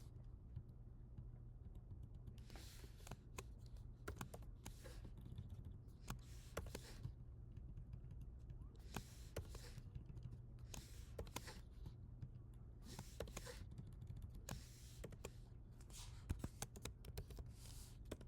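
Faint typing on a computer keyboard: irregular clusters of key clicks separated by short pauses.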